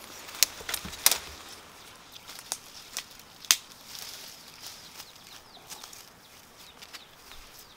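Footsteps pushing through dry forest undergrowth: leaves and brush rustling, with a few sharp snaps, the loudest about half a second, a second and three and a half seconds in.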